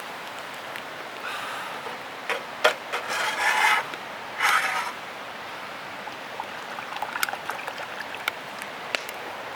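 Three rasping scrapes and several sharp knocks of hard objects being handled, over a steady hiss, with lighter clicks and taps in the second half.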